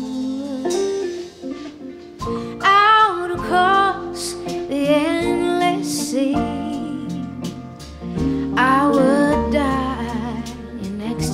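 Live band music: a woman singing, accompanied by an upright piano and band, with the vocal phrases coming and going over steady sustained accompaniment.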